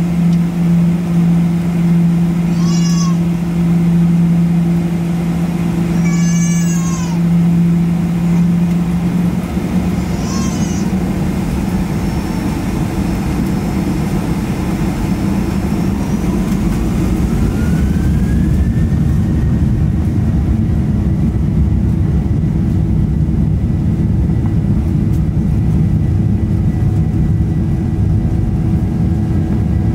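Cabin noise of a Boeing 737-900ER: a steady hum, then from about ten seconds in the CFM56-7B jet engines spool up, a whine rising and then holding while a low roar builds, as for the takeoff roll. Three short high-pitched meow-like cries come in the first ten seconds or so.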